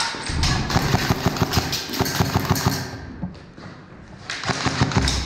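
Rapid clatter of airsoft gunfire: a quick run of sharp clacks and BB impacts for about two and a half seconds, a short lull, then another burst near the end.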